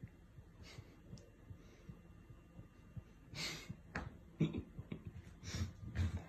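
A few soft breaths and sighs, the clearest about three and a half seconds in, with faint low rubbing and knocking sounds.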